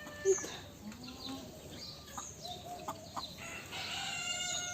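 Chickens: a rooster's long crow starting about halfway through, with clucking and the high chirps of small birds throughout.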